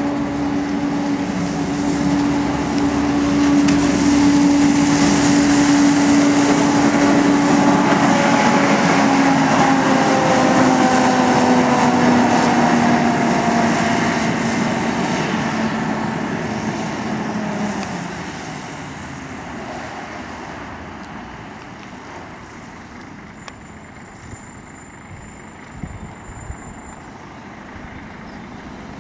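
Volvo B10BLE Wright Renown single-decker bus driving past with a loud, steady whine from its cooling fan over the diesel engine and road noise. The whine drops in pitch and fades away as the bus moves off, about two thirds of the way through.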